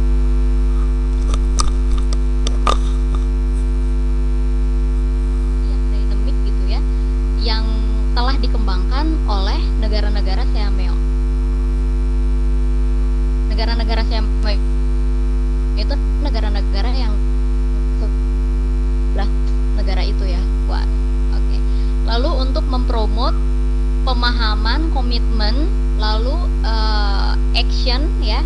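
Loud, steady electrical mains hum on the conference audio line: a low buzz with a ladder of overtones that holds at an even level throughout.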